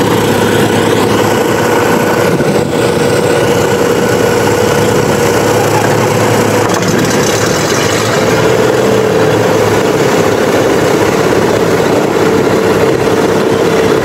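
Tecnam P2006T's twin Rotax 912 engines idling with propellers turning, a loud steady drone whose pitch edges up slightly about eight seconds in.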